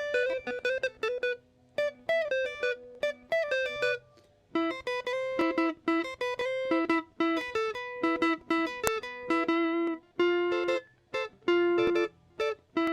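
Electric guitar played with a clean tone through a Zoom G1X ON multi-effects pedal: a melodic line of short single picked notes with brief pauses. The tone carries a boost in the lower mids and sounds somewhat dull.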